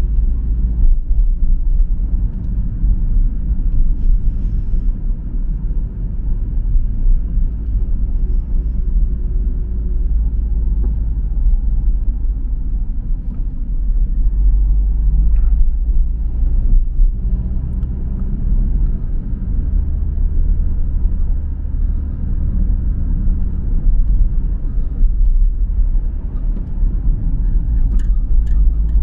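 Car running along a city street, heard from inside the cabin: a steady low rumble of engine and tyre noise. A few short clicks near the end.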